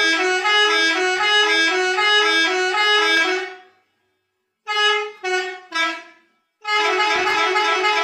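Digitally edited school bus horn honking in a rapid back-and-forth between two close pitches. It stops a little before halfway, gives three short honks, then picks up the alternating honk again near the end.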